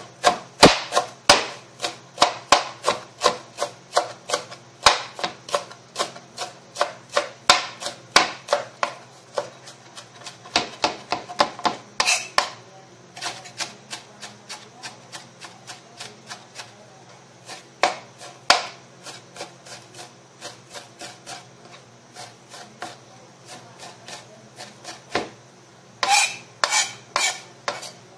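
Kitchen knife finely chopping green vegetables on a plastic cutting board: a quick run of blade strikes, about three a second. The strikes grow sparser and quieter in the middle, then come in a fast run again near the end.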